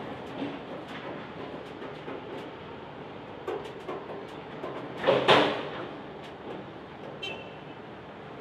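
Loaded grain hopper wagons rolling slowly past, a steady low rumble with scattered clicks from the wheels and running gear. About five seconds in comes one loud harsh clank, and a short high squeal follows near the end.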